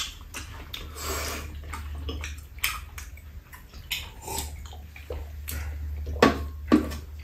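Eating sounds: wet chewing and slurping of tteokbokki, a sip from a mug, and scattered short clicks, over a low steady hum.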